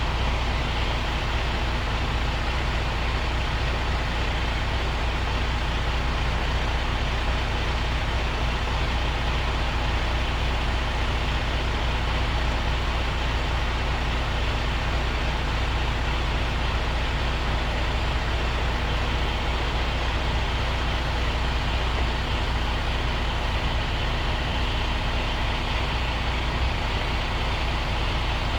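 Truck's diesel engine running steadily at an unchanging speed, with a deep, even hum.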